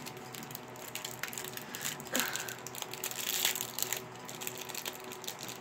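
Packaging of pins being handled and opened: irregular crinkling and crackling with scattered clicks, loudest about two seconds in and again around three seconds in.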